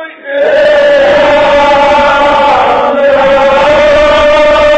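Group of men chanting a Kashmiri marsiya (Shia elegy) in unison, coming in loudly about half a second in and holding one long, steady note.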